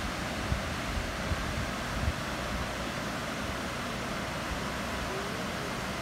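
Steady rushing hiss of a waterfall pouring over rocks into a pond, with a couple of low wind bumps on the microphone in the first two seconds.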